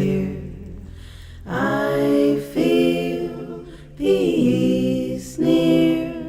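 Unaccompanied singing: long held notes in four short phrases, each starting suddenly.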